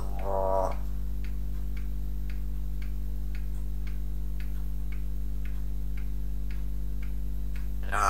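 Clock ticking steadily, about two ticks a second, over a low steady hum. A voice speaks briefly at the very start.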